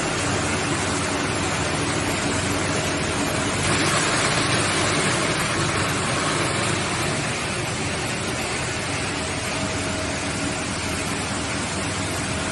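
PET bottle recycling washing line running: a steady machinery din with motor hum. A louder rushing noise swells from about four seconds in and eases off around seven seconds.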